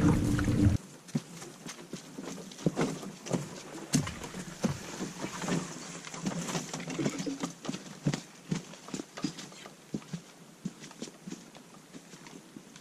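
Boots tramping up a rocky, leaf-covered forest trail, irregular footfalls with crunching leaves and twigs, growing fainter as the walker carries a canoe away up the path. The first moment is wind noise on the microphone from out on the lake, which cuts off under a second in.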